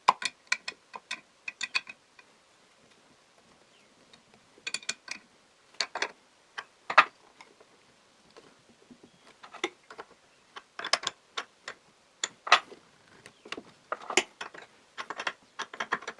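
Mechanical clicking and a few sharper metal knocks from fitting the hollow-chisel holder onto a drill press quill: short runs of ratchet-like clicks, a brief pause, then two single knocks and a longer, busier run of clicks.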